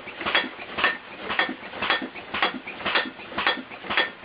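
Homemade computer-controlled, air-compressor-powered alarm contraption running, clattering and banging in a steady rhythm of about two strikes a second.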